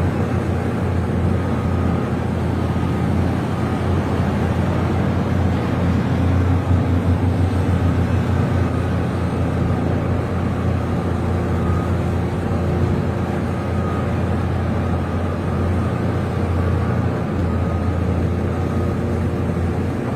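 Excavator's diesel engine running steadily, a continuous low drone that swells slightly about seven seconds in.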